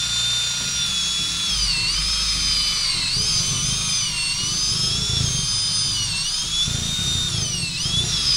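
Cordless drill boring out the old wooden handle stub from the eye of a sledgehammer head. The motor whines steadily and sags in pitch a few times as the bit bogs down in the wood.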